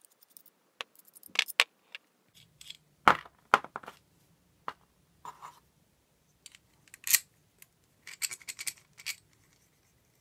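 Small metal torch parts (a valve with a knurled knob, a metal tube, a threaded rod) clicking and clinking against each other as they are handled and fitted together. The taps come irregularly, the loudest about three seconds in and about seven seconds in, with a quick run of them near the end.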